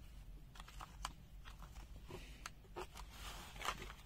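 Faint small clicks and light scraping from a Wiha screwdriver and bit set being handled, with a sharper click about a second in and a louder one near the end.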